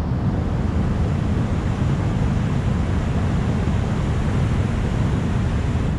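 Steady rush of river water pouring over a dam spillway and churning in the pool below it.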